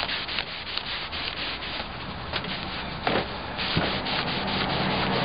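A cloth wiping sanding dust off a freshly sanded wooden drawer panel in quick, repeated rubbing strokes, cleaning it for a polyurethane finish. A low steady hum joins about three and a half seconds in.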